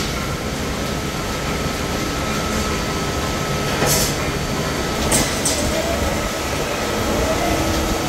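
Hydraulic press brake running steadily, its pump and motor giving an even mechanical drone with a faint steady whine. A few sharp metallic clanks near the middle come from perforated steel sheet being handled and set on the press bed.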